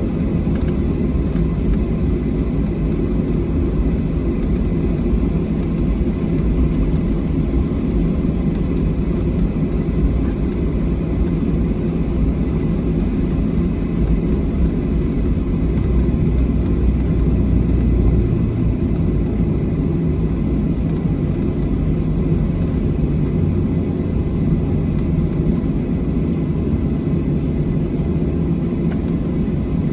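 Steady cabin noise of a Boeing 737-700 with its CFM56-7B engines running, heard from inside the passenger cabin: a dense low rumble with faint steady whine tones above it, swelling slightly about halfway through.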